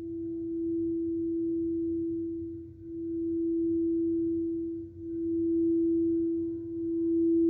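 Singing bowl ringing with one steady, pure mid-pitched tone that dips briefly and swells back about every two seconds.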